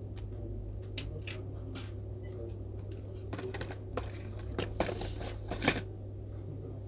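Small sharp clicks and taps of hand tools handled at a micro-soldering bench over a steady low electrical hum.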